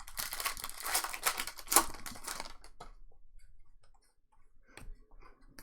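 Rapid rustling and clicking as trading cards are handled and sorted, dense for the first couple of seconds and then thinning to a few scattered clicks.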